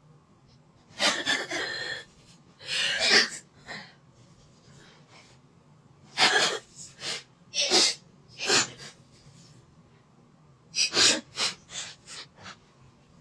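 A woman sneezing repeatedly, set off by a nasal swab in her nose: several sharp sneezes and breathy catches come in three bouts, about a second in, around the middle and near the end.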